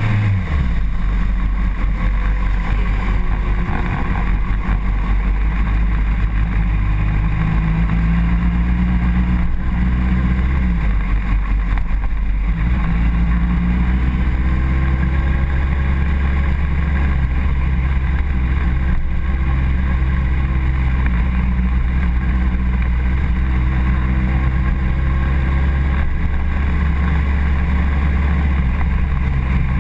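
Honda CBR1000RR's inline-four engine winding down as the revs drop right at the start, then running at low revs with small changes of throttle as the bike rolls slowly along.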